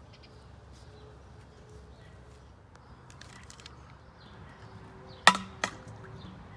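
Two sharp knocks of something hard striking a surface, about a third of a second apart, five seconds in, the first the louder, over a faint outdoor background with a few small ticks.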